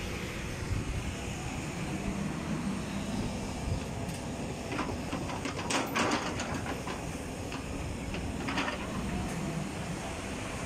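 Kobelco crawler excavator's diesel engine running steadily while the machine swings and digs its bucket into a rock pile. Rocks clatter and scrape against the bucket a few times, loudest about halfway through and again near the end.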